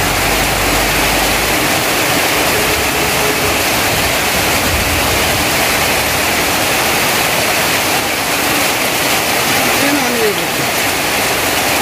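Heavy rain pouring steadily, falling on tarpaulin awnings and running off the roof eaves in streams.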